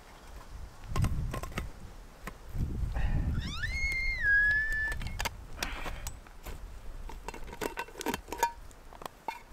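Metal camp cookware clinking and clattering, with scattered sharp taps, some ringing briefly near the end. About three and a half seconds in, a short high-pitched call rises, holds, then steps slightly down.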